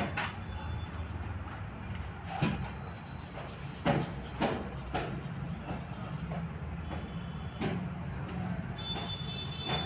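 Light clicks and taps of hand tools working on a circuit board, about half a dozen spread out, over a steady low hum. A faint high steady tone starts near the end.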